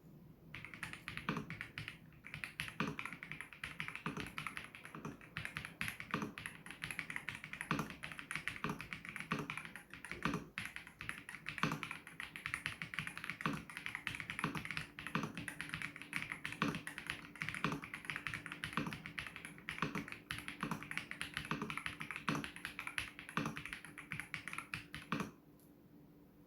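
Typing on an Ajazz AK820 Pro 75% mechanical keyboard: a fast, uneven run of key clicks with occasional louder strokes, stopping shortly before the end.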